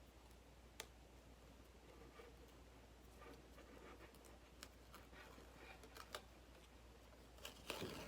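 Near silence with faint handling sounds: a few light clicks and brief rustles as a Cricut cutting mat holding craft foam is handled, slightly louder near the end.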